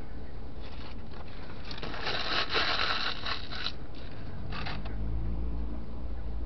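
Paper food wrapping rustling and crinkling as it is handled, loudest for about two seconds in the middle with a shorter rustle after, over a low steady hum in the cab.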